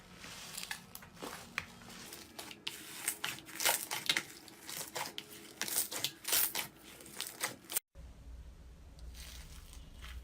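Slime being squeezed and worked by hand, giving a quick, irregular run of crackling and popping snaps. About eight seconds in, it cuts off abruptly to a low hum.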